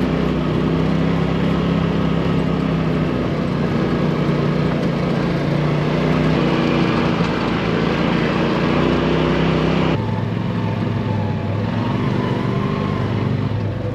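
Polaris RZR side-by-side's engine running steadily while the machine is under way, with a rushing noise over it. About ten seconds in the sound changes abruptly: the rush drops away and a lower, different engine note takes over.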